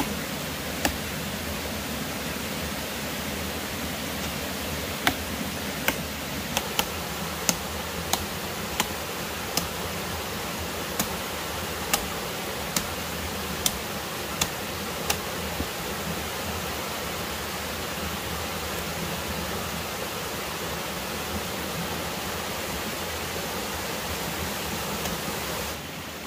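Rushing stream water, steady throughout, with a machete chopping bamboo: one sharp knock about a second in, then about a dozen more at irregular intervals of roughly a second in the middle of the stretch. Near the end the water sound drops away.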